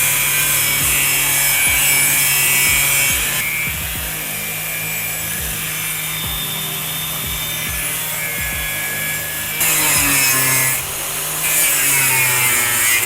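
Angle grinder with a cutting disc cutting through a thin metal sheet: a steady motor hum under the harsh grinding of the disc in the metal. The cutting noise eases about three and a half seconds in and comes back in louder spells near the end.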